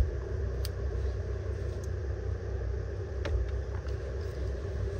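Steady low rumble of passing road traffic, with a few faint clicks over it.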